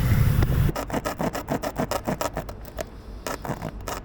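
Air hissing out of a punctured motorcycle tyre, cut off sharply under a second in. A quick run of short rasping scrapes follows, about five a second, thinning out towards the end, as a tool is worked back and forth in the puncture hole.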